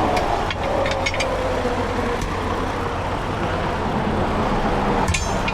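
Steady rumble of highway traffic passing at speed, with one vehicle's whine sinking slowly in pitch over the first few seconds as it goes by.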